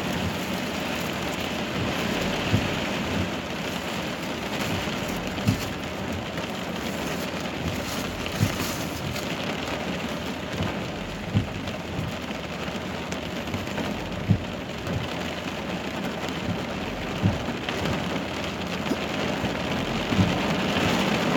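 Heavy rain falling steadily, with scattered louder drop impacts.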